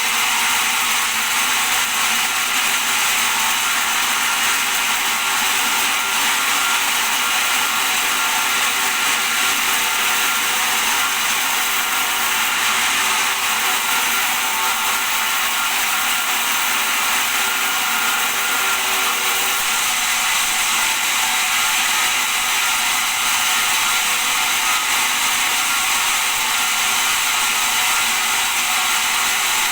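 Bandsaw running steadily: an even, unbroken mechanical whirr with a hissing upper range.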